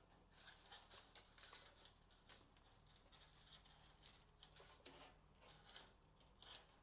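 Near silence, with faint scattered clicks and rustles of a CPU power cable being handled and fitted at the power supply.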